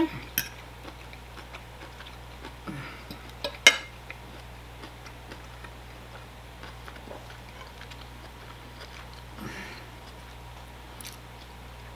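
A few clicks of a metal fork against a ceramic plate, the sharpest about three and a half seconds in, over a steady low hum.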